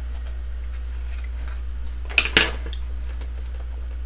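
Small clear hinged plastic parts box being handled: two sharp plastic clacks in quick succession about two seconds in, with faint handling rustles, over a steady low hum.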